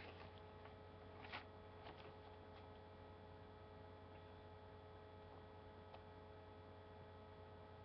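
Near silence with a steady electrical hum, and one faint tick about a second and a half in.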